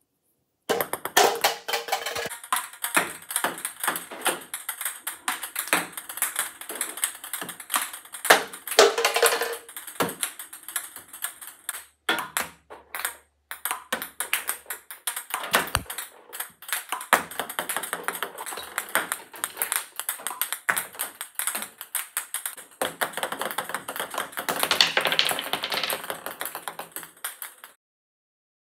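Background music with a fast, tapping percussive beat, broken twice briefly and cutting off suddenly near the end.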